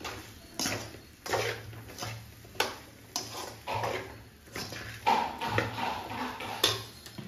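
A metal ladle scraping and clinking against an aluminium kadai as a thick brinjal curry is stirred, in repeated strokes about three every two seconds.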